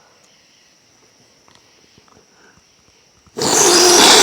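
A woman blowing her nose hard once, near the end: a loud rush of air with a steady low tone in it, lasting about a second. Before it there are only faint small sounds.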